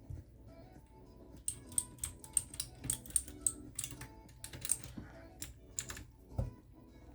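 Typing on a Redragon K630 mechanical keyboard with clicky blue switches: a run of sharp key clicks, a few per second, starting about a second and a half in and stopping about a second before the end, followed by a single dull thump.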